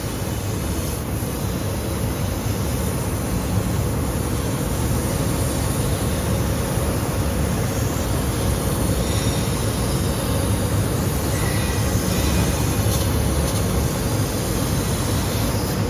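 Sheet-metal laser cutting machine at work: a steady mechanical hum with an even rushing noise.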